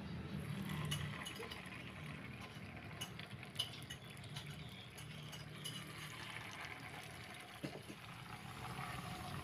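Hot cooking oil in a frying pan sizzling and bubbling as spoonfuls of corn fritter batter fry, with a couple of sharp clinks of a utensil against the pan, one about midway and one near the end.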